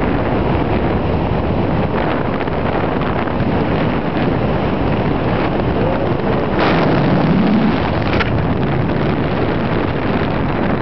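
Airflow of a paraglider in flight rushing over the microphone as steady heavy wind noise, with a stronger gust lasting about a second and a half midway.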